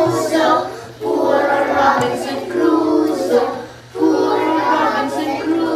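A group of children singing a song together, in phrases with short breaks between them.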